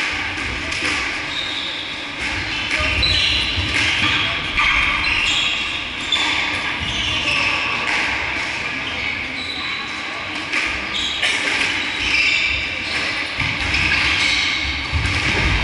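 Squash rally: the rubber ball is struck by rackets and smacks off the court walls in sharp knocks, with shoes squeaking in short high chirps on the wooden floor.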